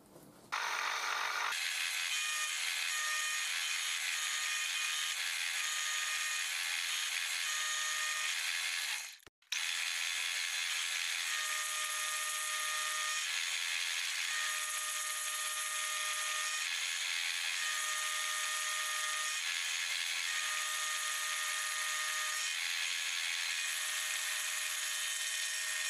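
Milling machine running an end mill through small pieces of metal clamped in a vise: a steady whirring hiss with a faint whine that comes and goes every couple of seconds. There is a brief break about nine seconds in.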